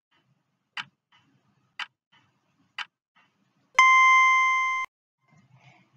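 Countdown timer sound effect: three ticks, one a second, then a steady electronic beep lasting about a second as the count hits zero, signalling that time is up.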